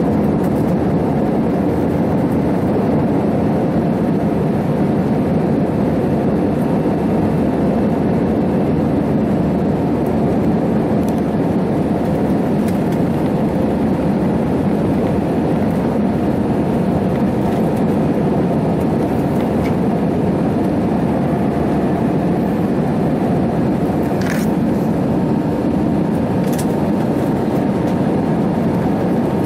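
Steady cabin noise of an Airbus A320-family jet climbing after takeoff: the engines and rushing air heard through the fuselage as an even, low rumble.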